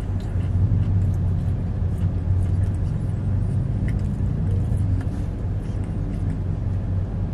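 Toyota pickup truck's engine idling, a steady low drone heard inside the cab, with faint clicks of chewing over it.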